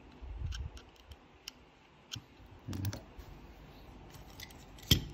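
Small parts of a GHK Glock 17 gas blowback pistol's trigger mechanism being handled and pried out by hand: scattered light clicks with a few soft knocks, and one sharp click near the end.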